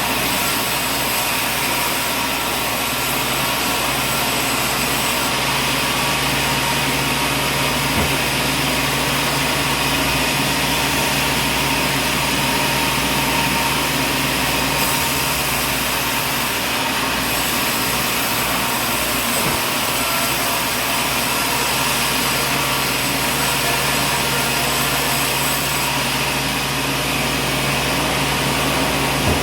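Machinery running steadily: a continuous motor drone with a constant hum, at an even level.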